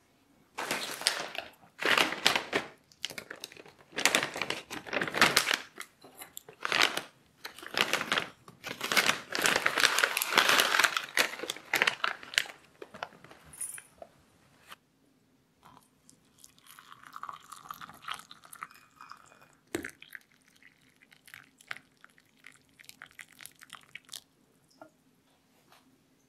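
Crinkly plastic tea packet rustling and crackling as it is handled and opened, with loose tea leaves spooned out. After a short pause, water is poured into a ceramic mug for a few seconds, then a single knock and a few light clicks.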